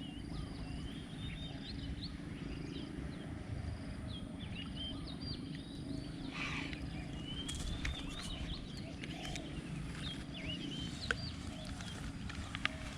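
Many small birds chirping and calling throughout, with short rising and falling notes, over a steady low rumble. Two sharp clicks near the end.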